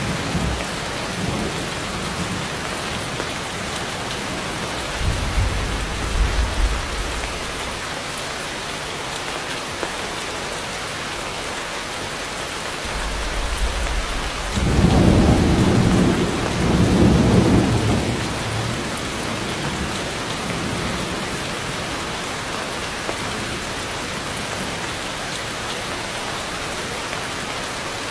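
Heavy rain pouring steadily onto forest foliage, with thunder: a low rumble about five seconds in and a longer, louder roll of thunder about halfway through.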